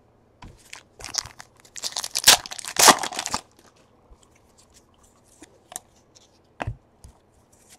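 A 2017 Donruss baseball card pack wrapper is torn open, tearing and crinkling for about two seconds starting a second in. A few soft clicks of cards being handled follow.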